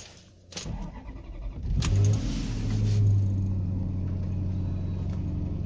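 Cold start of a 2007 Maserati Quattroporte's 4.2 L M139 V8 after sitting overnight. The starter cranks briefly, the engine catches about two seconds in, flares up and settles into a steady idle. There is no variator rattle: the cam cap repair has cured the cold-start noise.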